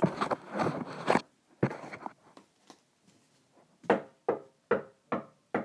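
Rustling handling noise, then a single sharp knock, then a regular series of knocks, about two and a half a second, starting about four seconds in: the staged 'weird noise' knocking.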